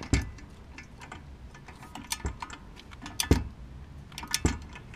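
Torque wrench ratcheting as it slowly turns out a brake caliper mounting bolt, giving sharp clicks at irregular intervals, about four loud ones with fainter clicks between.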